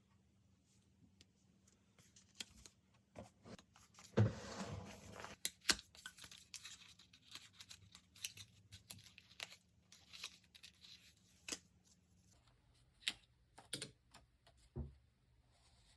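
Paper being handled for diary decorating: soft rustling and crinkling with scattered light taps and clicks. A thump and a longer rustle come about four seconds in.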